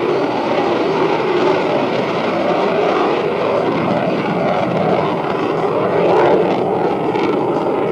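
An F-14 Tomcat's jet engines heard in flight: a steady, loud rush of jet noise whose tone shifts slowly up and down.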